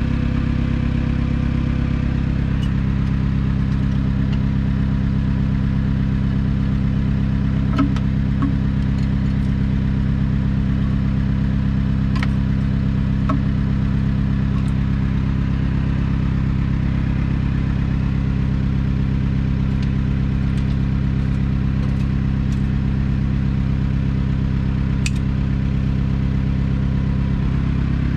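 An engine idling steadily at an even, unchanging speed, with a few light metal clinks.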